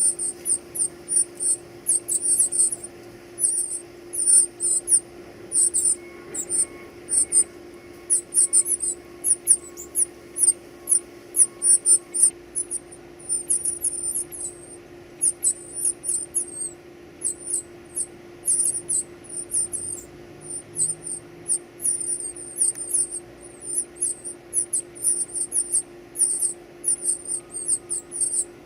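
Baby birds cheeping: rapid, very high-pitched begging calls, several a second, over a steady low hum.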